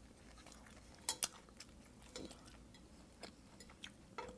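Quiet eating sounds: soft clicks and taps, with two sharp clicks about a second in the loudest. Near the end, chopsticks tap against a stainless steel pan with a short metallic ring.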